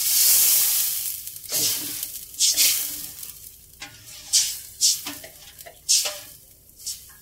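Water poured into a hot wok of fried spice paste sizzles with a loud hiss that fades over the first second or so. Then a metal spatula stirs the liquid, scraping against the stainless-steel wok in short, irregular strokes.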